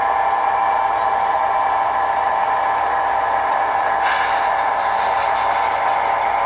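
Sound-equipped HO-scale diesel locomotive running steadily, its decoder playing the diesel engine sound through the model's small speaker, with a brief hiss about four seconds in.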